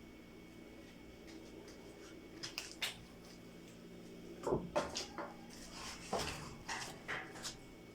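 A run of irregular clicks and knocks, like hard parts being handled, starting a couple of seconds in and loudest about halfway, over a steady low hum.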